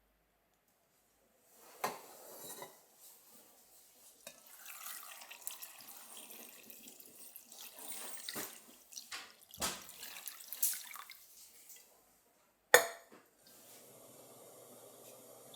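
Kitchen sink work: water running and splashing, with dishes and utensils clinking. Near the end a single sharp click, then a steady low hum starts.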